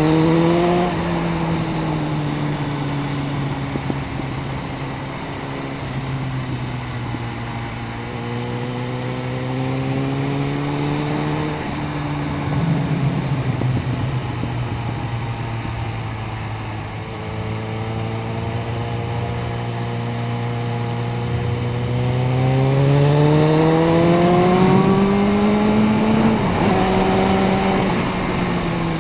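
Suzuki Bandit 650N's inline-four engine running under way, heard onboard, holding fairly steady revs through the middle. Near the end it revs up strongly under acceleration, then drops back suddenly, over a steady rush of wind and road noise.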